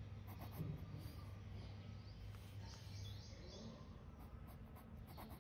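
Faint scratching of a red rollerball pen tip on ruled notebook paper as a word is written out in block capitals, stroke by stroke.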